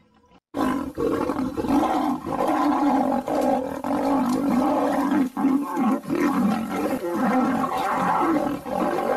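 Lion roaring and growling sound effect, loud and continuous, laid over the play-fight. It starts suddenly about half a second in.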